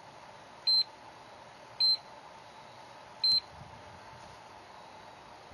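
GT Power A6-12 LiPo charger beeping as its capacitive touch buttons are pressed: three short high beeps a second or so apart, the key tones of stepping through its menu to the internal temperature reading.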